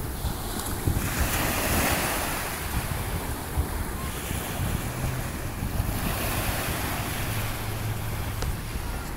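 Ocean surf washing up a sandy beach, swelling louder and easing off as waves come in, with wind rumbling on the microphone.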